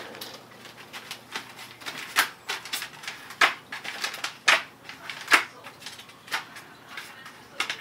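Paper rustling and crinkling in short, irregular bursts as a cat paws at and shoves papers and small items about on a shelf.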